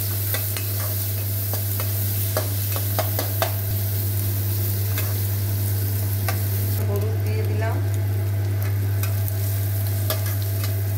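Sliced onions sizzling in hot oil in a non-stick wok while a spatula stirs them, scraping and tapping the pan now and then; the onions are being fried until browned before the vegetables go in. A steady low hum runs underneath.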